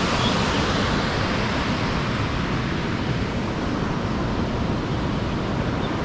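Steady rushing of a waterfall, an even hiss with no breaks.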